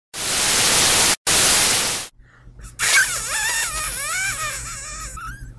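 Title-sequence sound effects: about two seconds of loud hissing static, broken once by a brief drop-out, then a wavering, warbling pitched sound that bends up and down.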